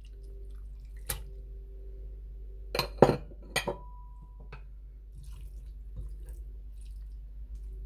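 Raw chicken pieces being tipped and scraped from a plastic bowl into a nonstick pot: a few sharp knocks and clatters of the bowl against the pot, the loudest about three seconds in, over a steady low hum.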